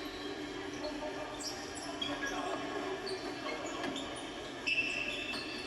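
Sounds of a game on an indoor court: scattered short high squeaks over a hubbub of voices in a large, echoing hall. A short steady high tone comes about five seconds in.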